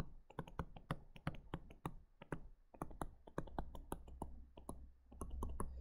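Light, irregular clicks and taps of a stylus tip on a tablet screen during handwriting, several a second with short pauses.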